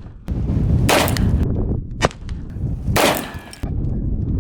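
Two shots from a Taurus Judge revolver firing 2.5-inch .410 buckshot, about two seconds apart, each with a short ringing tail, and a shorter sharp click between them.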